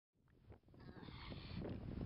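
Wind buffeting the microphone: uneven low-pitched wind noise that swells up from silence over the first second.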